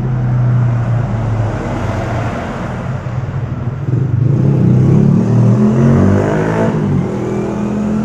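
A motor vehicle's engine running close by, steady at first and then louder, with its pitch shifting from about four to seven seconds in.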